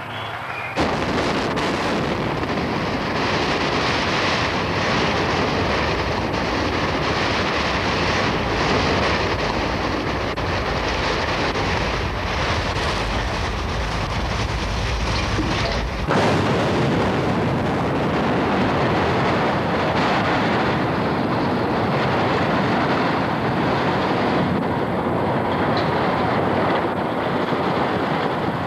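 Loud, continuous rushing rumble of an imploded building's collapse and the dust cloud rolling over, starting abruptly about a second in. Around 16 seconds in it changes suddenly and loses its deepest rumble, then keeps up a steady rushing noise.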